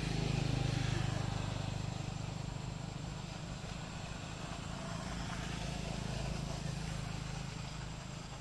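Low, steady engine drone of a motor vehicle running nearby, louder about half a second in and again around six seconds in.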